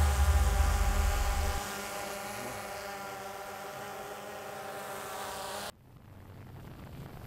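Camera drone's propellers buzzing steadily as it hovers, a hum of several even tones, with a deep low hum under it that stops about a second and a half in. The buzz cuts off suddenly near the end, leaving faint wind noise on the microphone.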